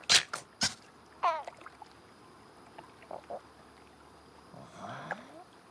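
Cartoon sound effects: three quick sharp clicks, then a short wavering squeaky call, a couple of soft blips, and a faint rising glide near the end, with quiet gaps between.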